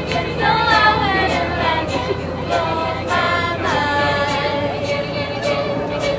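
Mixed choir of young women and men singing a cappella in harmony, with a crisp ticking beat about twice a second.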